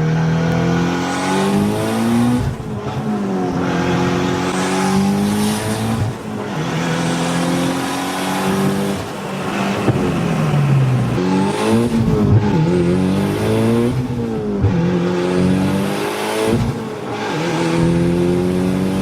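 Mitsubishi Lancer Evolution VIII's turbocharged 4G63 four-cylinder engine pulling through the gears: its pitch climbs, falls away sharply at each shift, then climbs again, six or seven times over.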